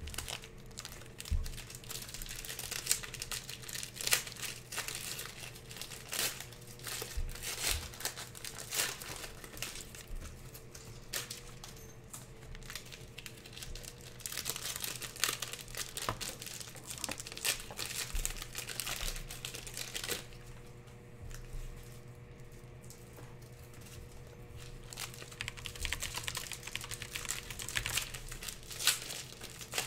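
Foil wrappers of Panini Prizm basketball card packs crinkling as the packs are handled and shuffled, in irregular rustles with a quieter patch about two-thirds of the way through.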